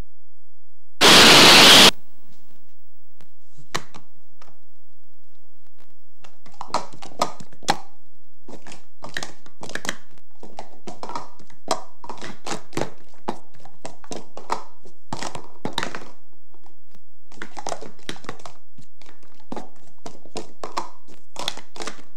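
About a second of loud static hiss near the start, then quick runs of light clacks and knocks from plastic speed-stacking cups being stacked up and down on a table.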